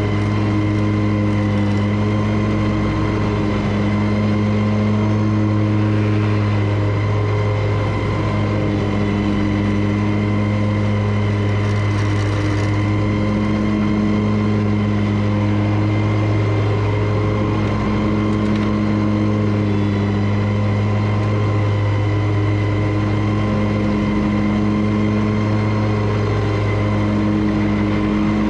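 Riding lawn mower engine running steadily at mowing speed, with an even drone and no change in pace.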